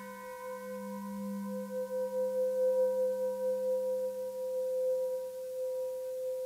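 Hand-held brass singing bowl ringing on after a strike: a clear, steady tone with fainter higher overtones. About two seconds in the main tone swells and wavers in loudness while the lower hum fades away.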